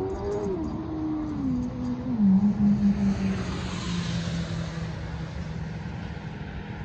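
A motor vehicle going by, its engine tone falling in pitch in steps over a few seconds as it passes, with a swell of tyre hiss near the middle.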